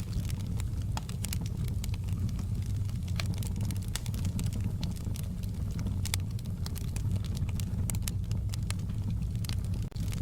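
Wood fire in a fireplace crackling, with irregular sharp pops and snaps over a steady low rumble of the flames; the sound briefly drops out near the end.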